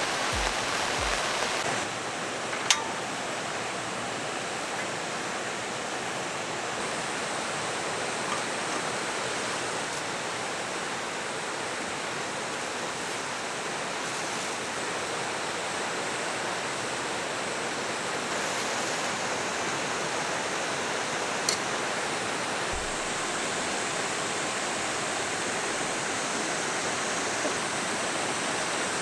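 Valley stream rushing steadily, an even wash of flowing water. A sharp click sounds a few seconds in, and another about two-thirds of the way through.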